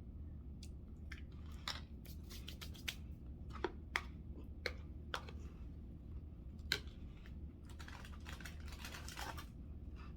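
Eating crunchy Ritz crackers topped with chicken salad: scattered sharp crunches and clicks, then a denser run of crunching near the end.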